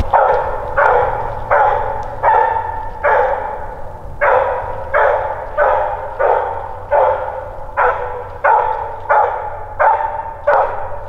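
Walker coonhound barking steadily and repeatedly, about one and a half barks a second with a brief pause a little after three seconds in, each bark trailing off with an echo: a coonhound barking treed on a raccoon.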